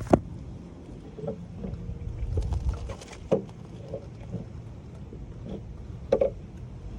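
Handling noises as a small fountain pump is taken out to be swapped: a few sharp knocks and clicks over low rumbling and water sloshing.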